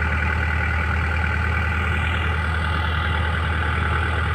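Four-wheel-drive farm tractor's diesel engine running steadily under load as it drives up a slippery, rutted mud track.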